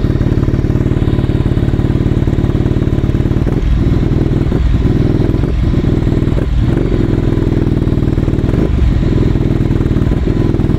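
A Ducati Scrambler 800's air-cooled L-twin running through a full Termignoni titanium exhaust, idling steadily. From about three and a half seconds in, the sound dips briefly several times.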